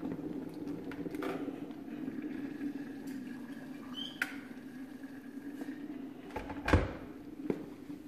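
Boiling water poured from an electric kettle into a ceramic mug, over a steady low hum. A sharp click comes around the middle, and a few knocks follow, the loudest a heavy thump late on.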